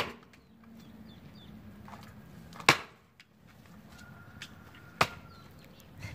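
Axes chopping into almond-tree logs being split for firewood: three sharp blows about two and a half seconds apart, the first right at the start.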